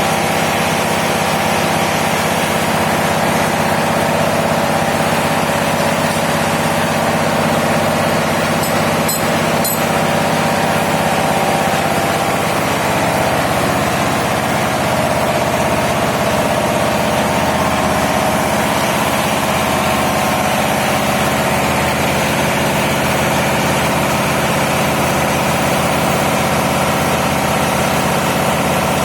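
Large diesel engine running steadily at an even speed, a loud constant drone with a few faint metallic ticks about nine seconds in.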